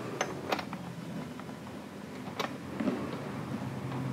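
A few light clicks as a new spark plug is threaded by hand into the cylinder head of a Honda EU22i generator: two in the first second and one about two and a half seconds in, over a faint steady low hum.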